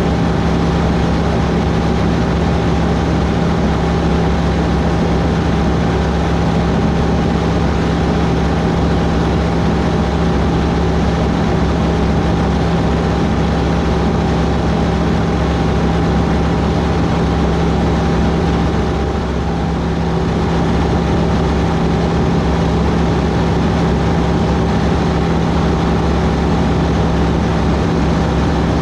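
Van's RV-12iS light aircraft in flight: its Rotax 912iS four-cylinder boxer engine and propeller drone steadily, with a brief slight dip in level about two-thirds of the way in.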